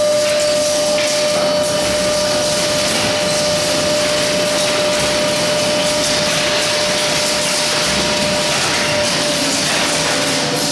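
Scrap-wire baler press running, a steady whine over a constant loud noisy machine sound.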